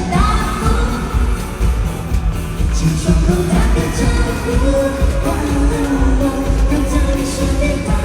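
Live pop concert music: a singer's held, sustained notes over a band with a heavy, steady bass-and-drum beat.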